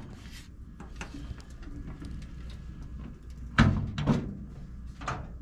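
Steel butterfly hood panel of a 1948 Diamond T truck being lifted open: a loud metal clunk a little past halfway, then two lighter knocks.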